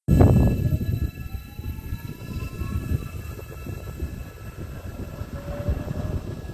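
Metlink FP-class Matangi electric multiple unit pulling away along the platform: wheel rumble and clatter, loudest at the start, with a rising electric traction whine as it gathers speed.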